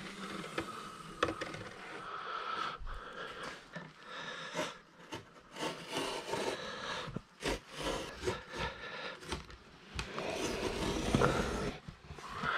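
Utility knife slicing through fiberglass cloth on a plywood board: an irregular run of short scraping strokes as the blade drags along a traced line, heaviest near the end.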